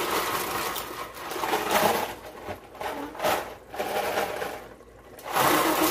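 Dry rigatoni rattling out of a cardboard box into a pan of boiling water: a dense rush of clattering pasta at first, then several shorter bursts with a pause before a last strong one near the end.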